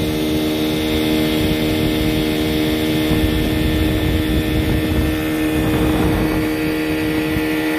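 Johnson 15 hp outboard motor running steadily at cruising speed, pushing the boat along, with the wash of the wake beneath. It is a test run of the motor with a newly fitted water pump.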